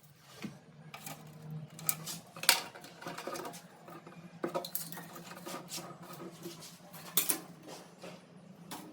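Metal clinks and knocks of plumbing tools and tap fittings being handled, with a string of sharp taps, the loudest about two and a half seconds in and again about seven seconds in. A faint steady low hum runs underneath.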